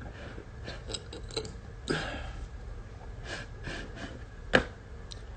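Ukulele handling noise: faint scattered clicks and taps, a soft rustle about two seconds in and a sharper click about four and a half seconds in, over a low steady hum.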